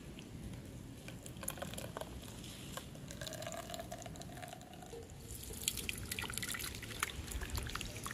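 Green juice dripping and trickling into a bowl of frothy liquid as a handful of pounded common blue violet leaves is squeezed by hand. Later it turns into denser splashing as the liquid is poured through a mesh strainer.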